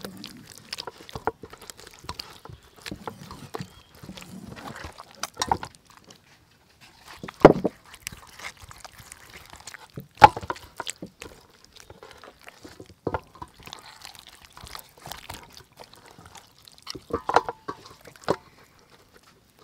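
Wet squelching and slapping of raw whole chickens being rubbed with marinade by hand on a steel tray, with a few sharper knocks as the birds are lifted and set back down.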